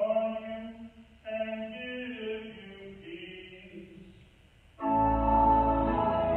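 A man's voice chanting on held, steady pitches, then after a short break a second sung phrase that steps down and fades away. About five seconds in, a church organ comes in with loud sustained chords over a deep bass.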